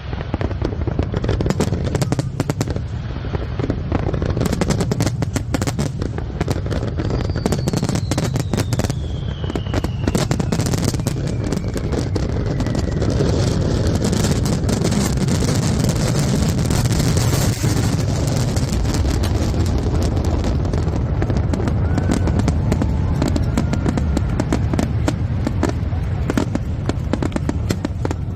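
Aerial fireworks going off: many sharp bangs with dense crackling, heaviest midway. About seven seconds in, a whistle slides down in pitch over several seconds.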